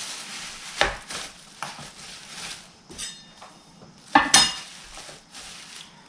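Plastic bag crinkling around a kitchen scale and the wrapped scale knocking against a marble countertop, a few sharp knocks with the loudest a double clatter about four seconds in.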